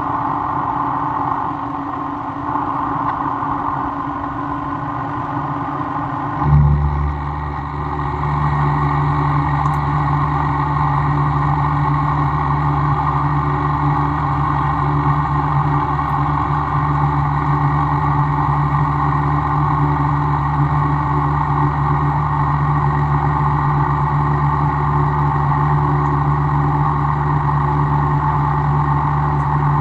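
Workshop machinery running steadily. About six and a half seconds in there is a short bump, and a deeper, louder motor hum starts and holds steady.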